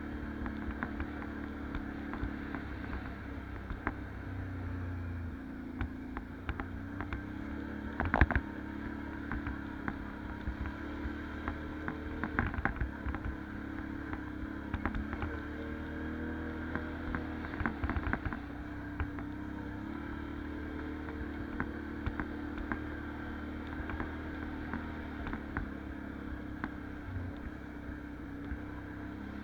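Can-Am 570 ATV's V-twin engine running steadily under way, with scattered knocks and clatters. The loudest knock comes about eight seconds in, with more around the middle.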